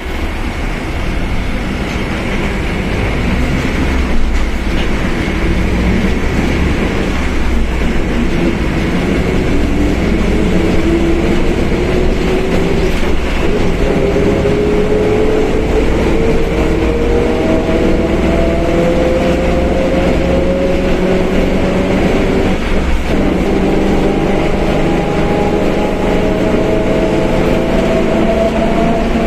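Mercedes-Benz OF1721 BlueTec 5 bus under way, its diesel running with a loud differential whine that climbs steadily in pitch as the bus gathers speed, with a brief break about three-quarters of the way through before it climbs again. The whine is the sign of a noisy differential.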